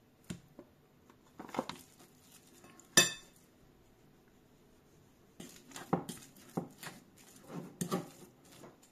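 Metal spoon clinking and scraping against a ceramic bowl while mashing and stirring a soft cheese mixture. There is one sharp ringing clink about three seconds in, then a quick run of scrapes and knocks from about halfway on.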